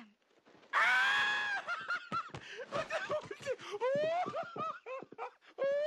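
Panicked screaming. A loud, held scream comes about a second in, followed by a run of short yelps and rising shrieks.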